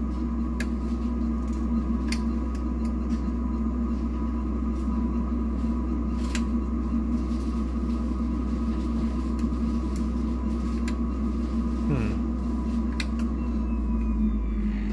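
Savant SpeedFuge SFG10K benchtop centrifuge running at speed: a steady motor hum with a higher steady whine. Scattered short clicks come from its front-panel buttons being pressed.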